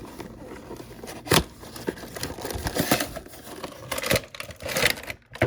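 A toy's cardboard and plastic packaging being opened by hand: uneven rustling and scraping, with a few sharp clicks, one about a second in and several more near the end.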